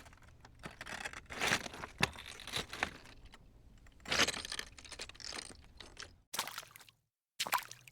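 Irregular crunching and crackling, with a few louder crunches. Near the end it gives way to short separate bursts with silence between them.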